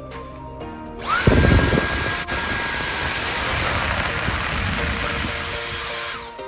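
Dyson V8 Absolute cordless vacuum's motor switched on by its trigger. It whines up to speed within about half a second with a loud rush of air, then runs steadily with a high whine over airflow noise for about five seconds before cutting off near the end.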